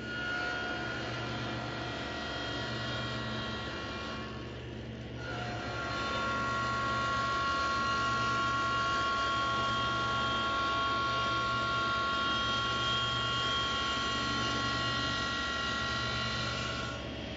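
Table saw running with its blade taking a light cove cut, raised only a sixteenth to an eighth of an inch, as a board is pushed across it at an angle along an auxiliary fence. A steady whine dips briefly about four seconds in, then carries on a little louder.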